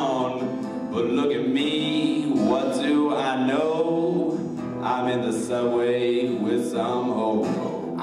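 Male singing over an acoustic guitar, performed live.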